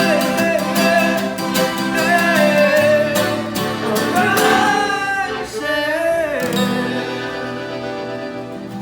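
Forró band playing live: a man sings the song's closing words in long, drawn-out notes over guitar and a steady percussion beat, and the music settles into a held final chord that fades near the end.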